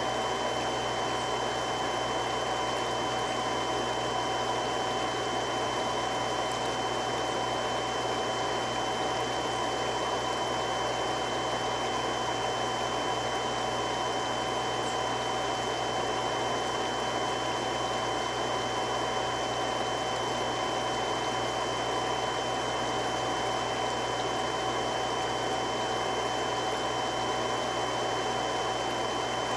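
Three-stage irrigation water pump running steadily: an even rushing noise with a low hum and a few constant whining tones.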